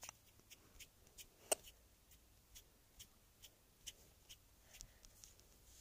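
Near silence broken by faint scattered clicks and ticks, with one sharper click about a second and a half in.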